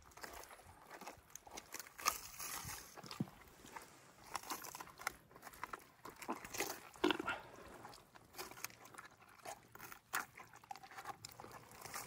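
Wet tearing and crunching as a seal carcass is butchered by hand and knife, flesh pulled and cut away from the ribs and spine. The sounds come in irregular bursts with sharp cracks.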